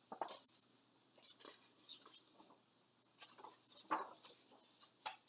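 Paper rustling as the large pages of a picture book are turned by hand, in a string of short swishes and flaps, the loudest about four seconds in.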